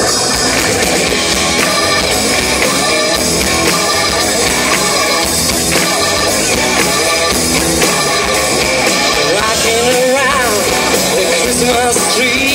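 Rock band playing live, loud and dense, with guitar and drums; a voice sings with wavering pitch from about ten seconds in.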